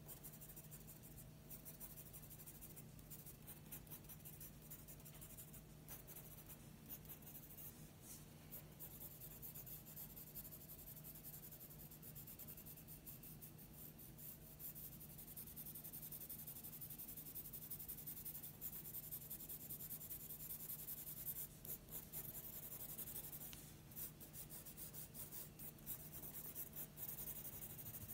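Pencil scratching on drawing paper in many quick short strokes, shading a drawing. Faint.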